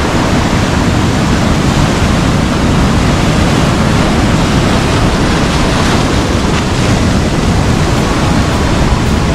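Heavy surf breaking and washing over rocks: a loud, steady rush of white water with no let-up, heaviest in the low end, with wind buffeting the microphone.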